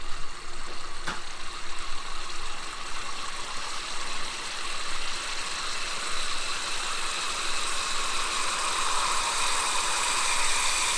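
Freshly poured liquid nitrogen boiling in a double-walled glass, a steady hiss.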